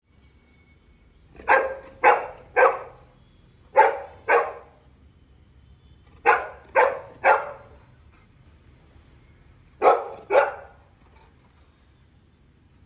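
Golden retriever barking: ten short barks in four quick bursts of two or three, with pauses of a second or more between the bursts.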